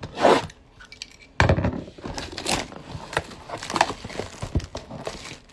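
Plastic shrink-wrap on a trading-card box being slit and torn off, crinkling and crackling. A short rustle at the start, then dense crinkling from about a second and a half in.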